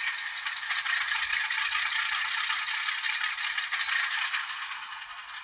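HO scale Alco RS11 model locomotive with its DCC sound decoder playing a diesel engine sound through the small on-board speaker as it rolls along the track. The sound is a thin, rattling drone with no low end, and it fades slightly near the end. The owner says this decoder sounds more like a tractor than a locomotive.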